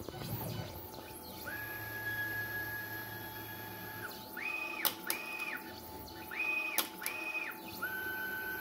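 Stepper motors of a Onefinity CNC pen plotter whining as the gantry moves. The pitch ramps up, holds and ramps down with each move, and there are four short moves in quick succession about halfway through. A couple of sharp clicks sound among the moves.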